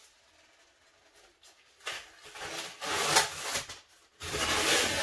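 Figure packaging being handled: rubbing and scraping of the box parts, then from about four seconds in a loud rasping tear as part of the packaging is pulled open.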